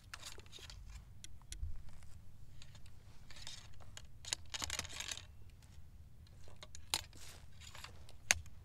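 Faint rustling, scraping and light clicks as a muzzleloading Lorenz rifle-musket is loaded at the muzzle, over a low steady wind rumble. A sharp click a little before the end is the loudest sound.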